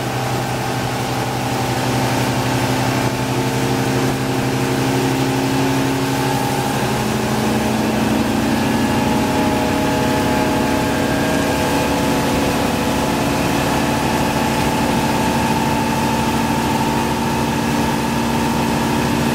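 MerCruiser 350 Mag MPI V8 sterndrive engine running steadily under way, the boat up on plane.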